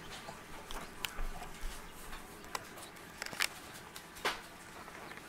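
Scattered light ticks and clicks with faint peeping from newly hatched chicks inside a plastic egg incubator.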